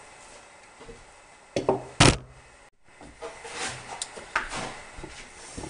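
Metal block plane being handled: a few knocks and light clunks, the loudest a sharp knock about two seconds in, with a brief cut-out of sound just under three seconds in.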